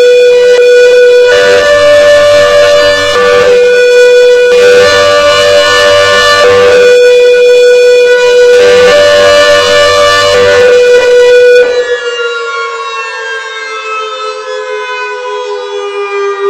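CS8 siren sounding its hi-lo signal, the tone switching back and forth between two pitches about every second and a half. Near the end the sound becomes quieter and a siren winds down, its pitch falling slowly.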